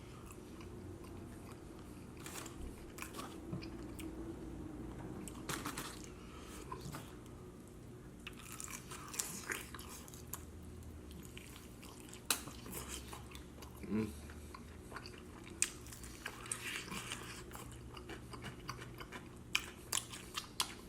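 A person chewing and smacking his lips close to the microphone while eating chicken wings: short smacks and clicks, scattered irregularly.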